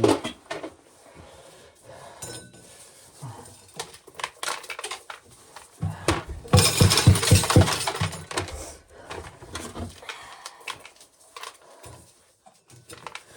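Corn being shelled: irregular clicks, knocks and clinking rattles, with a dense run of fast rattling and knocking about six and a half seconds in.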